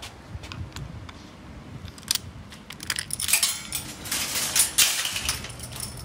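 Wire supermarket trolley rattling and clattering as it is pulled free of a nested row of trolleys, after a few light clicks. The clatter is loudest from about two to five seconds in.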